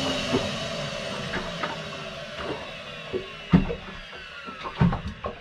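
Wet/dry shop vacuum's motor winding down, its whine falling in pitch and fading. A few sharp knocks come from about three and a half seconds in, the loudest then.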